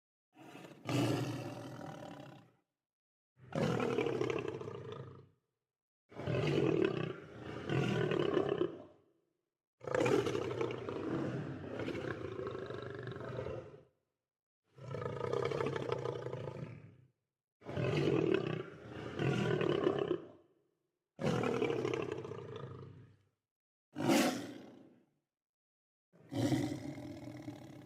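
Lion roaring repeatedly: about ten deep calls, each one to four seconds long, separated by short silent gaps.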